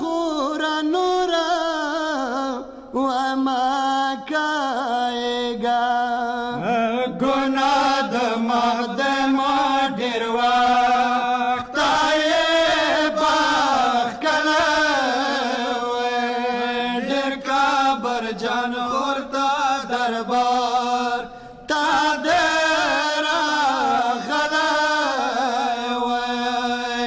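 Group of men chanting a Pashto noha, a Shia mourning lament, in one melodic line, led by the reciter at the microphone with the others singing along. The singing pauses briefly for breaths a few times.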